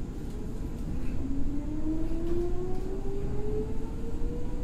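Meitetsu 6000 series electric train running: a steady rumble of wheels on rail, with a traction-motor and gear whine that rises in pitch as the train picks up speed.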